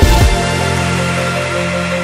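Music soundtrack: a heavy electronic beat stops within the first half-second and gives way to soft, held chords.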